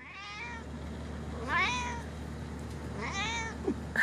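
Calico kitten meowing three times, each a short call bending down in pitch, about a second and a half apart.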